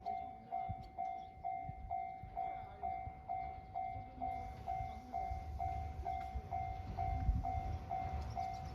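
Japanese railway level-crossing warning bell ringing, an even electronic ding about twice a second. A low train rumble builds under it in the second half.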